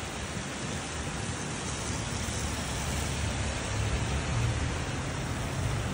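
Steady rain with cars driving along a wet street, their tyres hissing on the water. A low rumble swells about halfway through.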